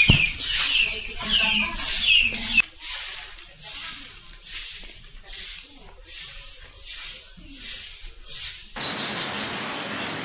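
Stick broom sweeping a packed-dirt yard in steady scratchy strokes, about two a second. About nine seconds in the sweeping cuts off and a steady even hiss takes over.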